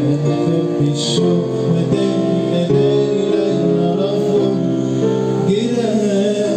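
Live electronic keyboard music played through PA speakers: held chords that change about once a second.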